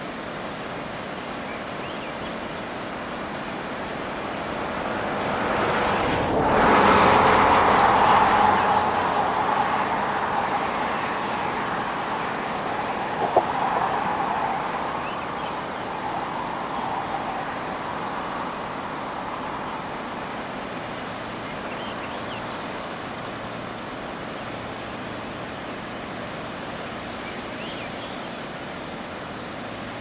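Waterfall rushing steadily over rock. A louder rushing sound swells up about four seconds in, is loudest around seven to eight seconds and fades away by about twelve, followed by a single short click.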